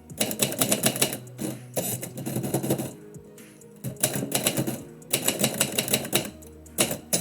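Typewriter keys striking in quick runs of keystrokes: about five bursts of typing separated by short pauses.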